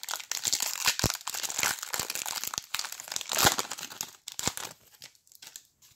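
Clear plastic wrapper of a Skybox basketball card pack crinkling as it is torn open and the cards are pulled out, with a few sharp crackles. The crinkling dies down about four and a half seconds in.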